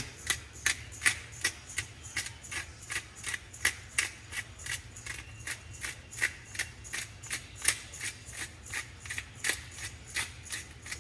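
Hand pepper grinder being twisted, giving a steady run of crisp grinding clicks at about three or four a second.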